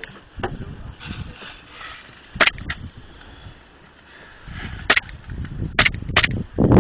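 Airsoft gun firing single shots: about five short, sharp cracks spaced irregularly over several seconds, two of them close together about two and a half seconds in.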